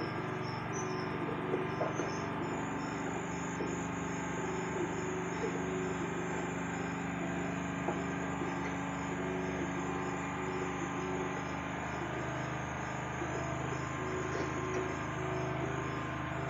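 Steady soundtrack of the TV programme, played through a television speaker: a low hum with short, regularly repeating chirp-like pulses, much like crickets at night or a pulsing background music bed.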